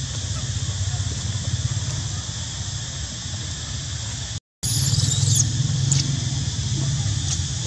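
Steady outdoor background noise with a high insect drone. After an abrupt break about halfway, a brief high-pitched squeal, typical of a newborn macaque, followed by a few faint clicks.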